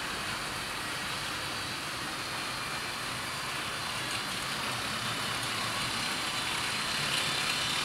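OO gauge model train running along the track: a steady whirr of motor and wheels that grows gradually louder as it approaches.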